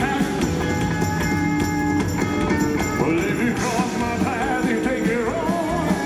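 Live rock-and-roll band, with drum kit, bass and electric guitar, playing while a male singer sings with vibrato into the microphone.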